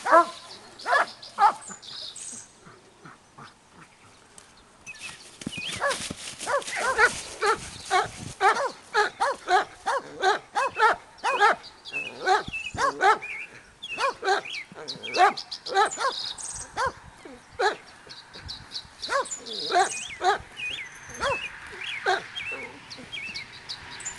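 Dog barking over and over, several short barks a second, after a brief lull; it starts up again about five seconds in.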